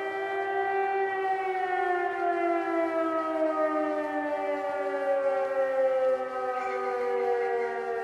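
Civil defence siren sounding the fire alarm signal: after about a second its wail slowly falls in pitch as it winds down, while a second steady tone holds underneath.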